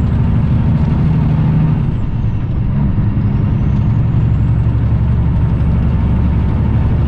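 Cummins ISX diesel engine of a Kenworth W900L semi truck running at highway speed, heard inside the cab as a steady low drone. A faint high whine dips about two seconds in and climbs back a second later.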